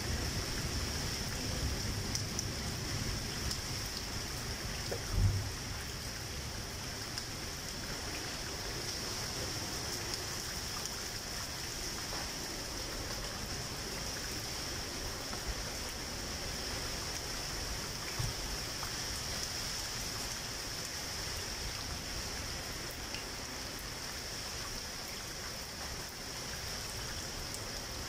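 Steady rain falling, with water running, under an even high hiss. A brief low thump comes about five seconds in.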